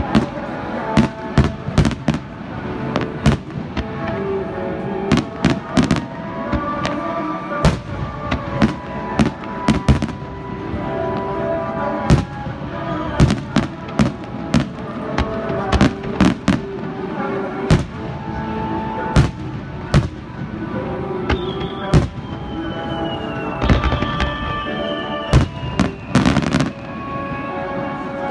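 Fireworks display: aerial shells bursting in quick succession, a bang every half second to a second, with music playing underneath.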